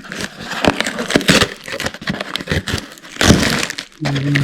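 Paper gift packaging being torn and crinkled while a present is opened: irregular crackling and rustling, with a louder rip about three seconds in.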